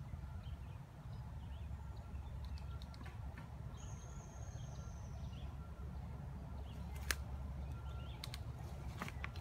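Woodland ambience with a steady low rumble, a single high, falling bird note about four seconds in, and a few sharp clicks near the end as a mountain bike comes up the trail.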